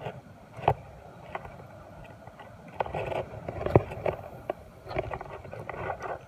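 Fishing rod and reel being handled: scattered clicks and rustling, with two sharper knocks, one under a second in and one near four seconds.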